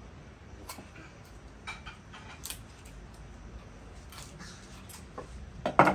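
Scattered light clicks and taps, with a louder knock near the end.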